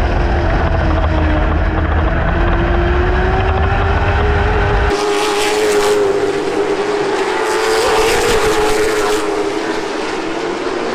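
Late model stock car's V8 engine running hard at high revs, one steady note slowly rising in pitch. About five seconds in the deep rumble drops away and a hissing sound comes in over the engine.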